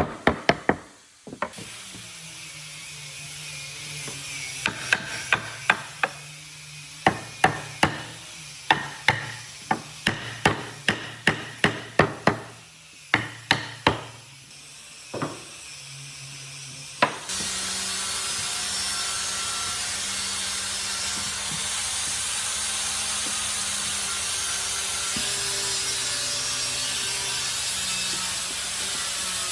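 Hammering on wood: a couple of dozen sharp knocks at uneven spacing over a low steady hum. About seventeen seconds in, a power tool starts and runs steadily.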